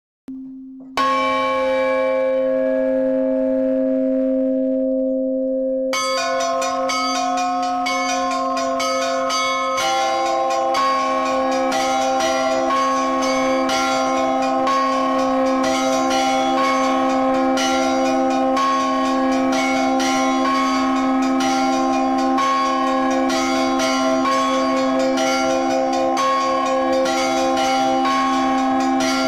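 Orthodox church bells rung by hand from ropes. A single deep bell rings first, then about six seconds in smaller bells join with quick, rhythmic strikes, and about ten seconds in more bells are added to a full, steady peal.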